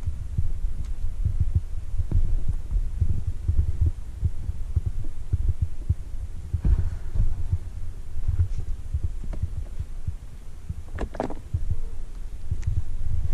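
Wind buffeting the microphone in an uneven low rumble, with a few sharp clicks, the loudest a quick pair near the end.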